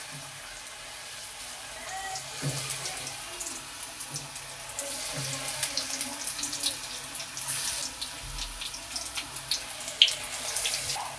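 Brinjal pakodas in gram-flour batter deep-frying in hot oil in a kadai: a steady sizzling hiss with many small crackles and pops. There is one sharp click about ten seconds in.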